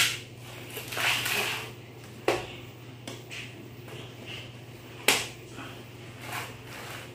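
Laptop casing parts being handled on a work surface: three sharp clicks and knocks a couple of seconds apart, with softer scraping between, over a steady low hum.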